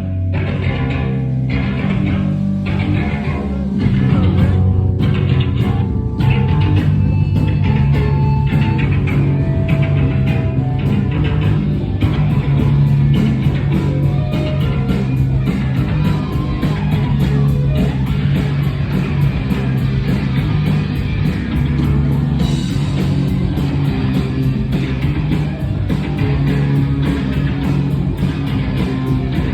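Live rock band playing loud, with electric guitars and a steady drum beat; the band gets louder about four seconds in.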